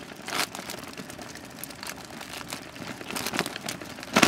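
Bicycle rolling fast downhill on a gravel road: tyres crunching and rattling over loose stones, with irregular crackles and a louder burst about half a second in.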